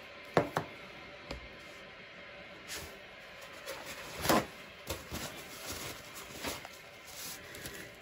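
Scattered light knocks and clatter of paint cups and bottles being handled and set down during an acrylic paint pour: a few knocks at the start, a louder one about halfway, then smaller clicks and scrapes.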